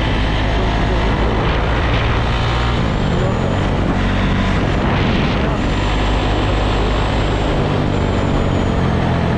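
Loncin LX300 enduro motorcycle's single-cylinder engine running as the bike is ridden, through an exhaust drilled out from stock that gives a more powerful, non-stock sound. The engine note shifts a little in pitch as the throttle changes.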